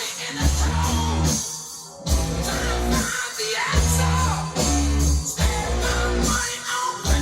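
Rock music with guitar and singing, played back from a cassette on a Yamaha K-550 cassette deck.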